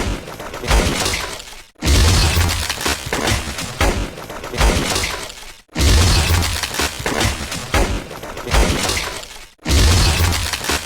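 Dense battle gunfire: many rapid shots overlapping, with heavy low thumps. The sequence repeats as a loop of about four seconds, dropping out briefly three times.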